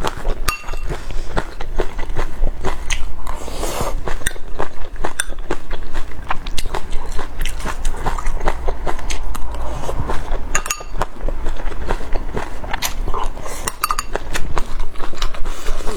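Loud, close chewing and biting with many wet mouth clicks and smacks, a person eating a mouthful of rice mixed with chopped bird's eye chilies and chili oil.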